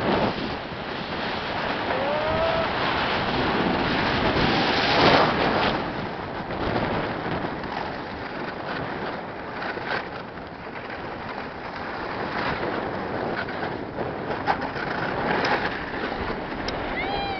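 Wind rushing over the microphone mixed with a snowboard sliding and scraping over snow on a downhill run: a steady rushing noise, loudest about five seconds in. A short rising tone sounds about two seconds in.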